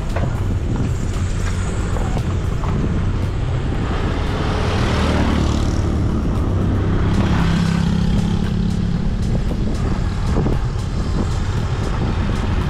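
A motor vehicle passing on the road, its engine noise swelling from about four seconds in and fading by about nine seconds, over a steady low rumble of wind on the microphone of a moving bicycle.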